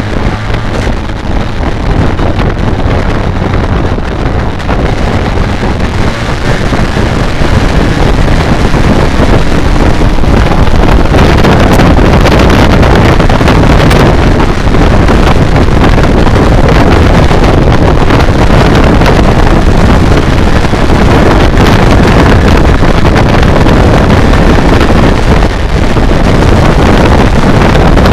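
Heavy wind buffeting on the microphone of a BMW K1200R Sport motorcycle on the move, with the bike's inline-four engine running steadily underneath. The wind noise grows louder about eight seconds in and then stays loud.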